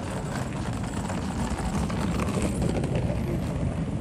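Busy street ambience in a pedestrian shopping district: a steady mixed wash of crowd and traffic noise with a low rumble and faint ticks.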